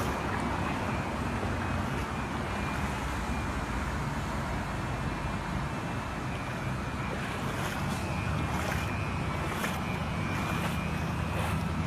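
A motor running steadily in a flooded street, with rushing water and wind on the microphone, and a few short sharp noises near the end.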